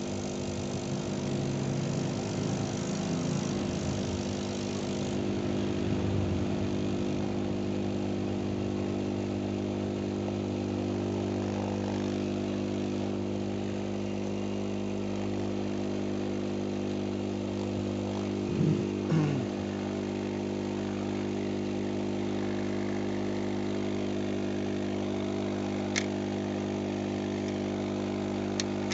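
A steady motor hum: a drone of several fixed low tones at an even level. Two short rising swells come about two-thirds of the way through, and a single click near the end.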